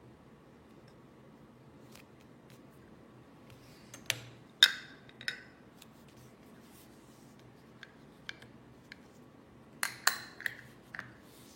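Sharp metallic clicks and clinks from a button-making press and its dies being handled and pressed: a group of three about four seconds in and another quick group near the end, with a few light ticks between.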